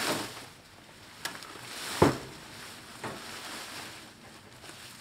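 Cut corn stalks and leaves rustling as armfuls are dropped into and pushed around a metal trailer bed, with a sharp knock about two seconds in and smaller ones around it.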